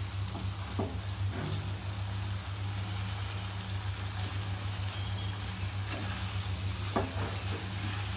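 Lentils (daal mash) frying on high flame in a non-stick pan with a steady sizzle, a spatula scraping and turning them now and then. A steady low hum runs underneath.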